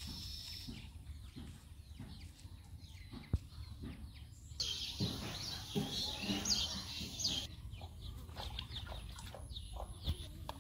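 Chickens clucking and other birds calling, busiest for a few seconds around the middle, with a single sharp click a little over three seconds in.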